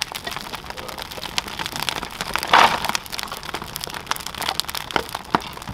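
Large wood fire of split logs crackling and popping with dense, irregular snaps, with one louder rushing burst about two and a half seconds in.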